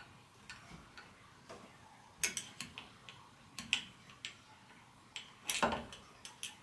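Metal socket extension clicking and tapping against the inside of a suspension fork leg as it is worked down to find and engage the head of a bolt. Light clicks come at irregular intervals, with a louder clatter about five and a half seconds in.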